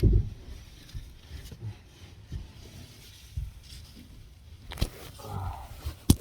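Irregular dull thumps and a few sharp knocks from someone shifting about and bumping things in a roof space. The loudest is a sharp knock near the end.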